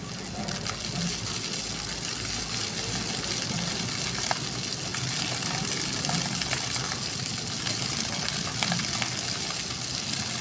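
Water jets of a ground-level plaza fountain spraying up and splashing down onto wet paving. It makes a steady hiss that swells over the first second or two as the jets come on.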